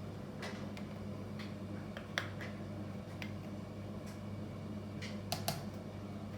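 Scattered light clicks and taps of a scoop and espresso portafilter as ground coffee is spooned in, over a steady low hum. The sharpest click comes about two seconds in, and a close pair follows near the end.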